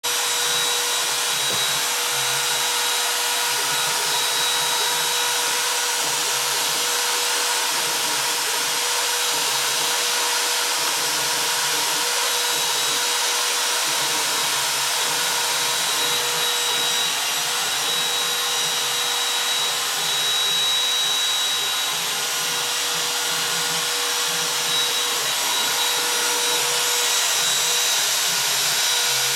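Electric router running at full speed with a steady high-pitched whine while its bit cuts grooves into plywood.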